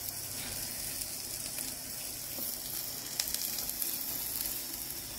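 Sliced onions sizzling steadily in hot oil in a large aluminium kadhai, with one faint tick about three seconds in.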